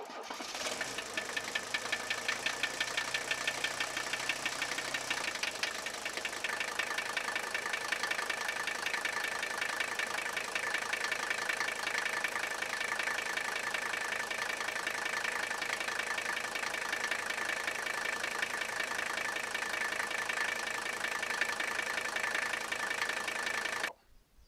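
Mercedes OM617 inline-five diesel idling with its steady, fast clatter. The sound cuts off abruptly near the end.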